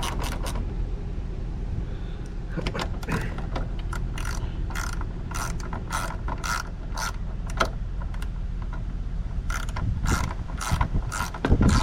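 Hand ratchet wrench clicking through a run of short strokes, about three clicks a second, as a bolt is turned.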